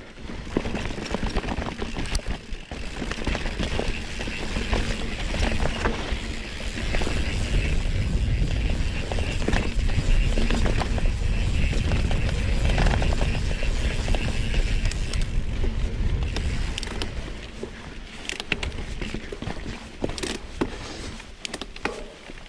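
Mountain bike riding down a sandy dirt trail: wind buffeting the camera microphone and tyres rolling over the dirt, with many short clicks and rattles from the bike over bumps. The noise swells in the middle and eases toward the end.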